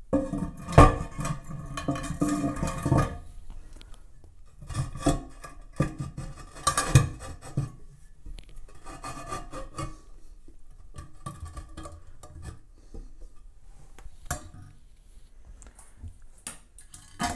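Porcelain toilet tank lid scraping and knocking on the tank rim as it is set back down over a hook-on bidet sprayer holder and pressed into place. There is a sharp knock about a second in and dense scraping for a couple of seconds, then intermittent rubbing and lighter knocks.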